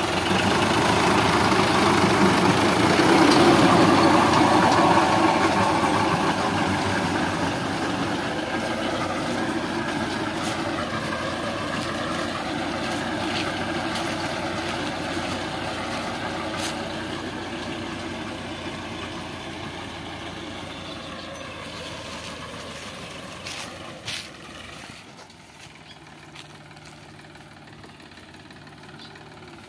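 Sonalika DI 745 III tractor's diesel engine running under load while driving a rotavator through grass and soil. It is loudest a few seconds in, as it passes close, and then fades steadily as the tractor moves away.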